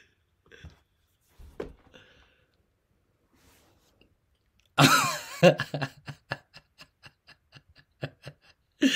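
A man laughing: a loud burst about five seconds in, then a run of short breathy laughs, about four a second.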